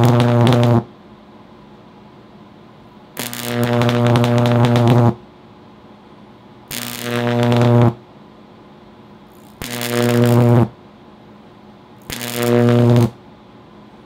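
High-voltage arcs from two microwave oven transformers in series with resonant capacitors: a loud, deep mains buzz with harsh crackling hiss. One arc cuts off under a second in, then four more are struck, each lasting one to two seconds, growing louder as it burns and then stopping abruptly, with quiet gaps between.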